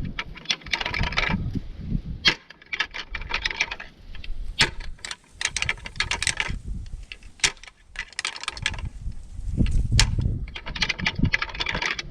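Wind gusting on the microphone in low rumbles, mixed with irregular dry rustling and clicking crackles.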